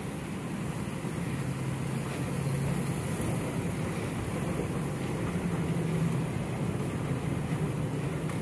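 Moving walkway running with a steady low mechanical hum, under a steady high hiss of ventilation.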